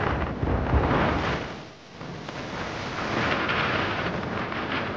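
Wind buffeting the microphone over the rush and splash of water along a moving boat's bow. It drops away briefly about two seconds in, then comes back as a steadier hiss of water.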